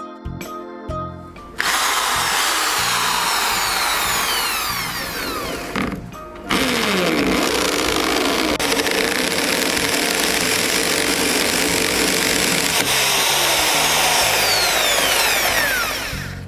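Corded electric drill with a twist bit boring into a plastered wall, running in two long stretches with a short break about six seconds in, its whine falling in pitch as the bit bites. A moment of background music comes before it starts.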